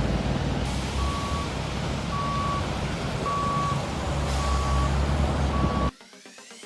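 Heavy vehicle's engine running with a reversing alarm beeping five times, about one beep a second. The sound cuts off suddenly near the end.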